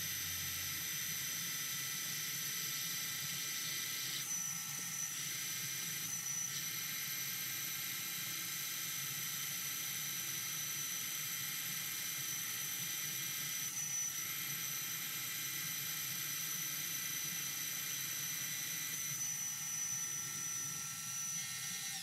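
Benchtop mini mill running with a steady high motor whine while a 1 5/8-inch Forstner bit bores through a butcher-block wood blank, the sound dipping briefly a few times.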